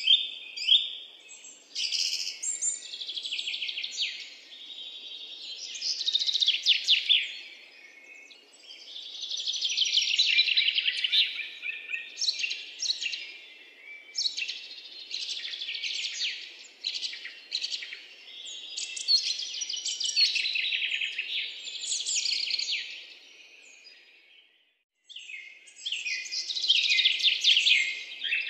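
Songbirds singing: dense chirps and rapid trills, one song after another, with a brief pause near the end.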